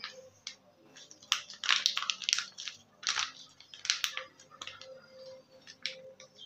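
Plastic squeeze pouch of mayonnaise crinkling as a gloved hand squeezes it out, in a run of crackly bursts strongest between about one and four and a half seconds in.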